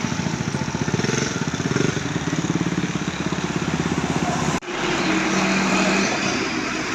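Vehicle engines in road traffic. First comes a fast, even-pulsing engine rumble, which cuts off abruptly about two-thirds of the way in. A steadier engine hum follows.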